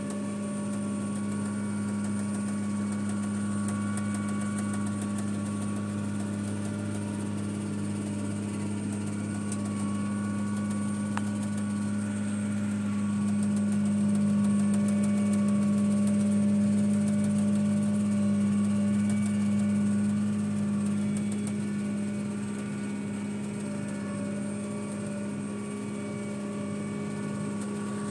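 Tractor engine running steadily under way, heard from inside the cab as a constant drone, swelling somewhat louder for several seconds midway.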